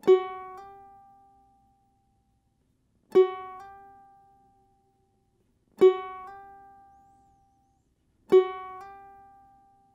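Ukulele E string plucked at the second fret and slid up to the third, the bluesy F-sharp sliding up a half step to G. Played four times, each note ringing and fading out.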